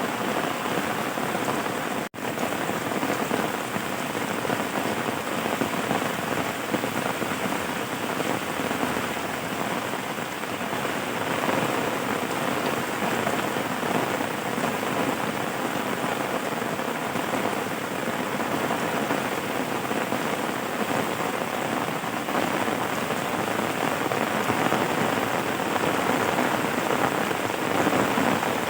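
Steady rain falling, an even hiss of drops, broken by a momentary dropout about two seconds in.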